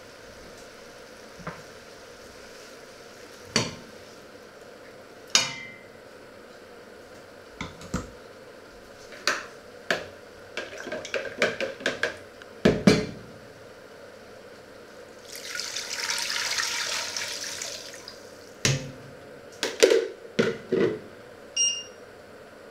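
Clinks and knocks of a stainless steel cooking pot and utensils, with a few seconds of water poured from a plastic measuring jug into the pot after the middle. A few short electronic beeps from the ceramic hob's touch controls near the end.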